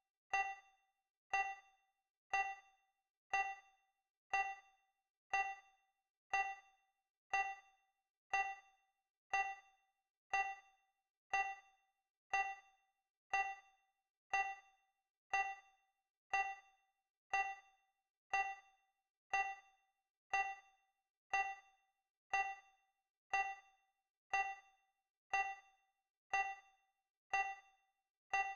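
Countdown timer's clock-tick sound effect: a short electronic tick with a ringing tone, once every second, each one fading away quickly.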